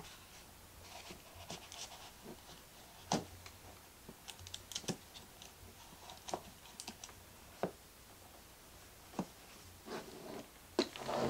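Handling of a cardboard watch box: irregular light clicks, taps and scratches as a watch is set into its box and the lid is closed and handled, with a cluster of knocks near the end.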